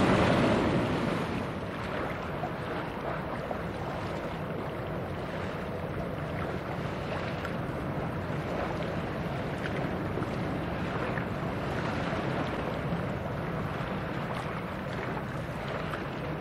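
Passing cargo ship's engine droning steadily under the wash of water, with wind noise on the microphone. A louder rush of water and wind fades away in the first second or two.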